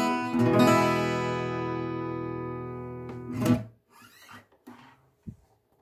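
Acoustic guitar: a final chord strummed and left ringing, fading away over about three seconds. A short knock then cuts the ringing off, followed by a few faint rustles.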